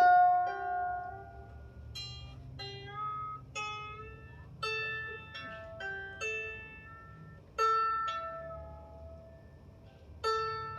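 Single strings of a 16-string lyre harp plucked one at a time during a rough tuning, about eight separate notes at uneven intervals, each left to ring out and fade. The new strings are still stretching and settling to pitch.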